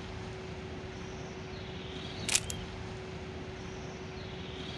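A single sharp camera shutter click about two seconds in, over a steady outdoor hiss with a faint low hum and a few faint high chirps.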